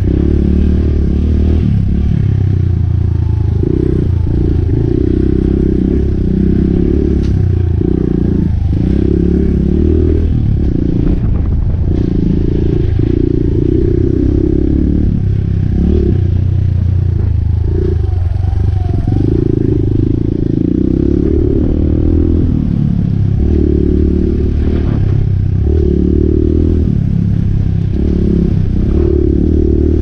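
Suzuki DR200's single-cylinder four-stroke engine running through an FMF Q4 slip-on exhaust while riding a dirt trail. A few knocks and rattles come from the bike over bumps.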